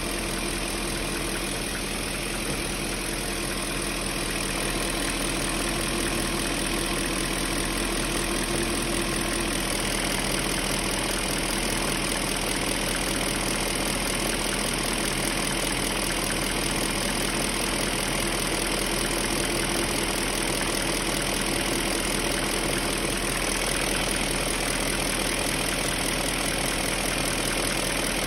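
BMW M62 4.4-litre V8 engine idling steadily with a knock that the owner suspects may be a hydraulic lifter (tappet) knocking.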